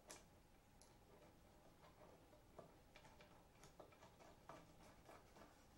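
Near silence, broken by a few faint, irregular metal clicks: a nut and washer being turned by hand onto a threaded-rod bolt.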